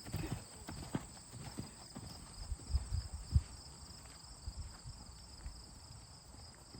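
Horse's hoofbeats, an irregular run of dull thuds that is heaviest about three seconds in and then lighter.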